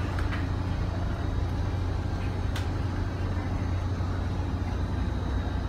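Steady low drone of the ferry's engines and machinery heard inside the ship's passenger lounge, with a single click about two and a half seconds in.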